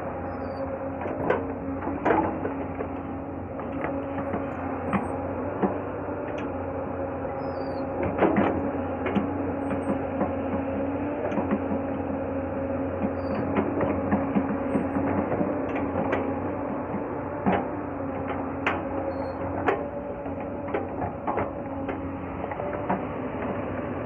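Hyundai crawler excavator's diesel engine running at a steady drone with a held tone, while its bucket scrapes and presses down loose earth and rocks, giving scattered clunks and knocks as it levels and compacts the ground.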